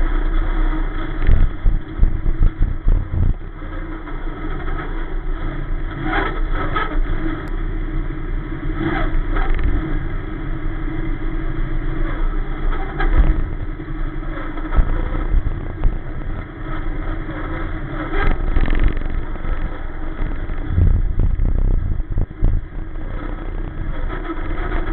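Sportsman dirt-track race car engine running at low speed as the car rolls slowly, heard from inside the cockpit. A few brief louder swells break the steady running.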